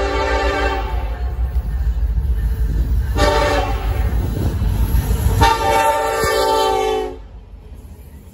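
An approaching freight train's lead diesel locomotive, an EMD SD70ACe, sounds its multi-chime air horn: the tail of one long blast, a short one about three seconds in, and a long one, the close of the standard long-long-short-long grade-crossing signal. A deep rumble of the diesel engines and the passing train runs under the horn. Just after seven seconds the sound cuts off abruptly to a much quieter background.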